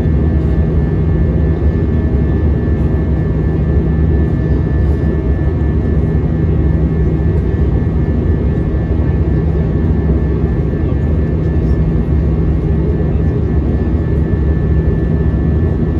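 Steady jet cabin noise aboard an Airbus A320-232 with IAE V2500 engines: a deep, even engine and airflow rumble with a thin, steady high whine over it.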